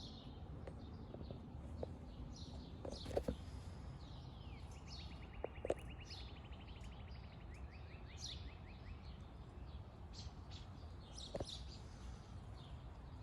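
Several birds chirping over a steady low background rumble, with a rapid, even trill running from about four and a half seconds to nine seconds in. A few sharp clicks stand out, the loudest about three and five and a half seconds in.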